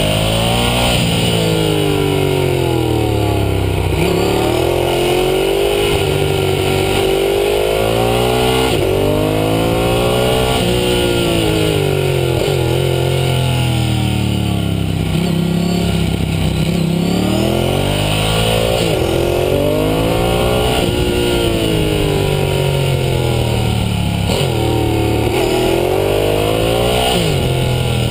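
Ducati Hypermotard 1100's air-cooled L-twin engine, heard from a camera mounted on the bike's belly, being ridden hard on a track. The engine note climbs and drops again and again, revving up through the gears and falling back on shifts and braking.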